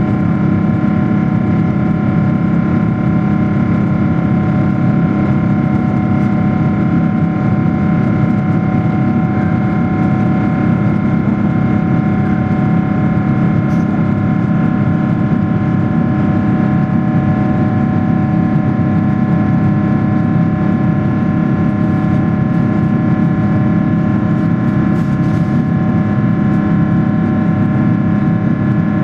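Cabin noise of a Boeing 777-300ER: its GE90 turbofan engines' steady drone with several steady whining tones over a low rumble of airflow, unchanging throughout.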